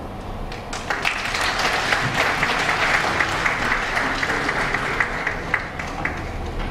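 A small seated audience applauding. The clapping starts about a second in and thins out near the end.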